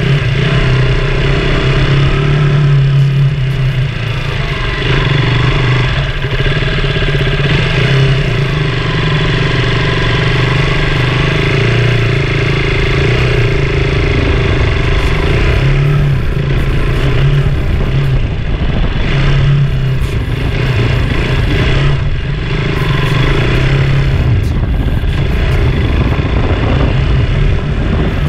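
KTM Duke 200's single-cylinder four-stroke engine running at low, fairly steady revs as the motorcycle rides a dirt track, the note rising and falling a little with the throttle, over the rumble of the tyres on loose ground.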